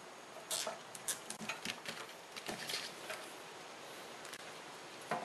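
Faint rustling and light plastic clicks of a bundle of insulated wires being handled and gathered with cable ties. The clicks and rustles come scattered through the first three seconds, with one more near the end.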